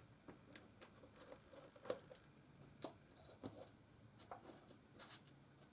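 Faint, scattered clicks and taps, about five of them, from hands and a small tool working on the plastic body of a camcorder being taken apart, against near silence.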